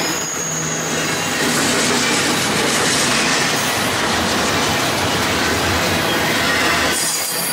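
Double-stack intermodal freight cars rolling past, with a steady loud rush of steel wheels on rail. A thin high squeal sounds in the first second.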